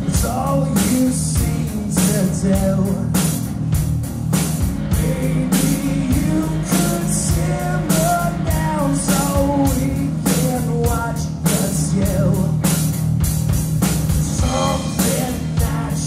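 Live rock band playing: drum kit with a steady beat, bass and electric guitar, with a lead melody line that bends and slides in pitch over the top.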